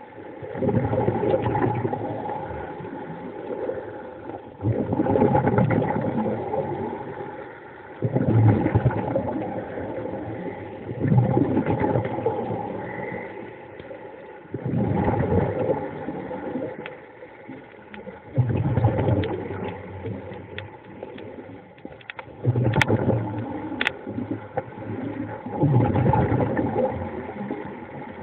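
Underwater recording of a diver's exhaled air bubbles, a surge that starts suddenly about every three and a half seconds and fades over a couple of seconds, with a steady engine-like hum underneath.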